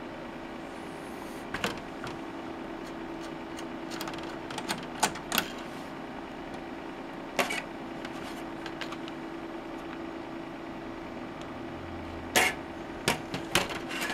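Scattered light clicks and taps of small parts being handled on a bench: a copper mesh shield lifted off a breadboard and set down. The sharpest clicks cluster near the end, over a steady low hum.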